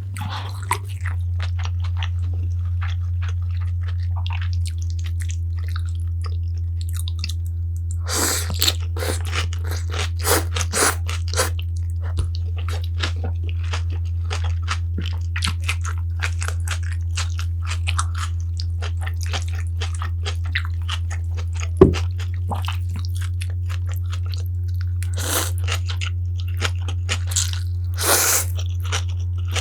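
Close-miked eating: chewing and crunching of food in bite after bite, with louder crunchy stretches and one sharp click about two-thirds of the way through. A steady low hum runs underneath.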